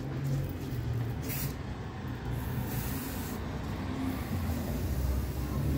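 Aerosol can of nickel spray paint hissing in a short burst about a second and a half in, over a steady low hum.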